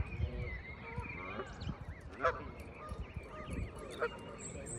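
Canada geese giving several short honks about a second apart, over a stream of high peeping calls from their goslings.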